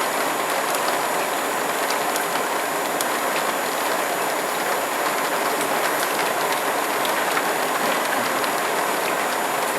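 Heavy rain falling steadily, a dense even hiss with scattered sharp ticks of individual drops striking.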